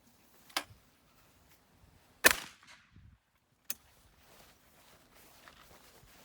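Airsoft rifle with a forged 7075 aluminum receiver being worked and fired in a function test after taking a shotgun blast: three sharp cracks, the middle one about two seconds in the loudest with a short ring. The rifle is still working normally.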